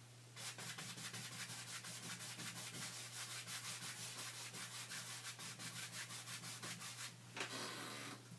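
Rapid back-and-forth rubbing or scrubbing strokes on a surface, several a second, stopping about seven seconds in and followed by one short louder scrape. A steady low hum runs underneath.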